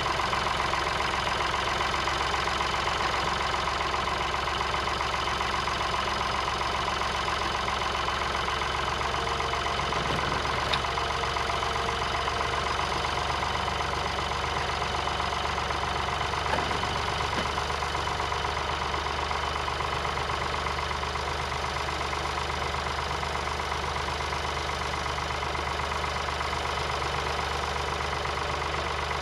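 Tractor engine running steadily at an even speed, pulling an old potato planter.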